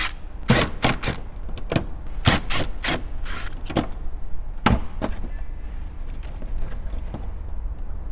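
Irregular sharp clicks and knocks, a dozen or so and mostly in the first five seconds, of a tool working at the Phillips screws that hold a car's plastic wheel-arch liner, over a low steady hum.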